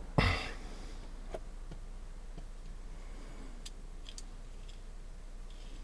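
Small clicks and taps from handling a digital caliper as it is put back together: one sharp knock just after the start, then a few faint ticks.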